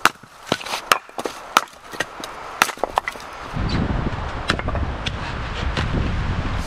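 An axe splitting firewood rounds: a quick series of sharp cracks and knocks as the blade bites and the wood splits. About halfway through, a steady low rumble comes in under the strikes.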